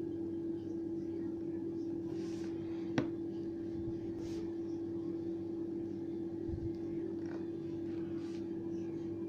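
A steady, even hum with one sharp click about three seconds in.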